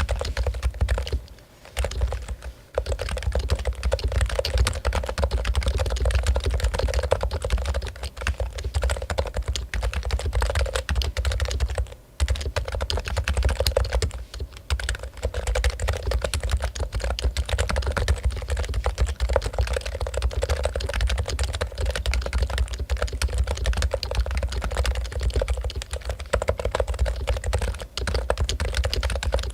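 Fast, continuous typing on a Topre Realforce keyboard with Topre electro-capacitive switches: a dense patter of soft keystrokes. It breaks off briefly a couple of times, about a second and a half in and again around the middle.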